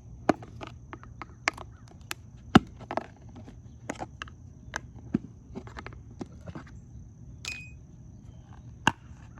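Irregular series of sharp clicks and knocks, like hard objects being handled and set down, with the loudest knock about two and a half seconds in. A faint steady high whine runs underneath.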